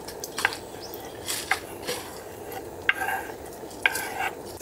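Minari pancake sizzling as it fries in a pan, with three sharp metal clinks of a utensil against the cookware.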